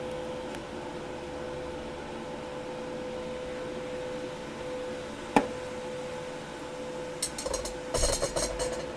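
Steady hum of background machinery with a single sharp click about five seconds in, then a second or so of clattering handling noise near the end.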